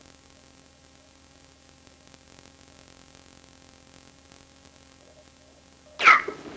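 Faint hiss and a steady hum from an old home cassette recording with nothing on it, then a sudden loud, short noise near the end.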